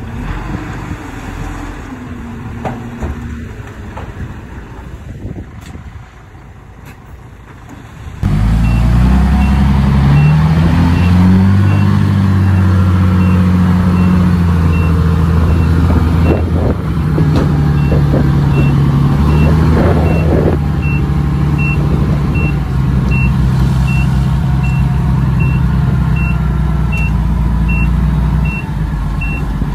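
Heavy diesel earthmoving machinery running, quieter at first, then much louder from about eight seconds in, with the engine rising under load. A reverse alarm beeps steadily at about one and a half beeps a second, and there are a few clanks in the middle.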